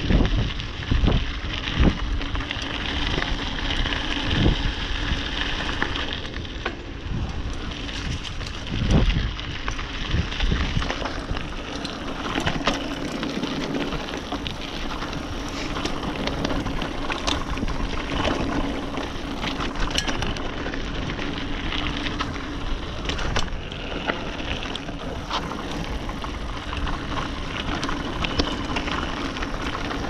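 Specialized Rockhopper mountain bike ridden along a dirt trail: tyres crunching over the ground with constant clicks and rattles from the bike. Several heavy thumps over bumps in the first ten seconds.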